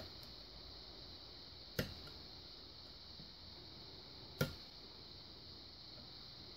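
Faint clicks of a lock pick working the pins inside a pin-tumbler lock cylinder under light tension: three short sharp ticks, the loudest about four seconds in.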